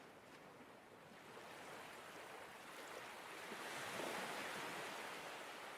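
Faint rushing noise, like surf or wind, that swells to a peak about four seconds in and then eases off.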